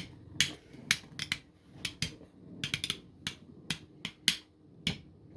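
Two 3D-printed Beyblade tops spinning in a stadium and clashing, a dozen or so sharp plastic clicks at an uneven pace, over a faint steady hum.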